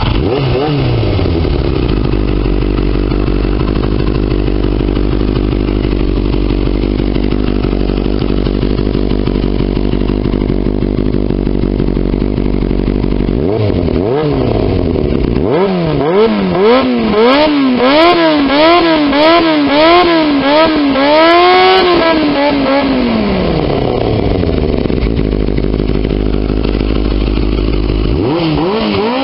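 1989 Yamaha FZR 400's inline-four engine, bike standing still, revs dropping back to a steady idle, then blipped hard again and again about halfway through, its pitch sweeping up and down several times in quick succession before falling back to idle. It rises once more near the end.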